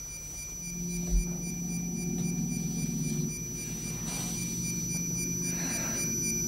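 Synthesized electronic sound effect: a low steady hum under several high whistling tones, with a faint rapid pulsing at the top. A single dull thump comes about a second in.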